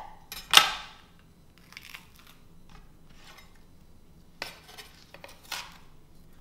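Chef's knife cutting a fresh poblano pepper on a cutting board: a sharp knock of the blade against the board about half a second in, then a few fainter cuts and taps.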